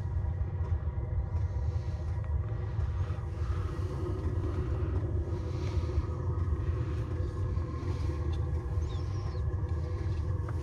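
Steady low motor rumble with a constant hum of several even tones above it, running without change.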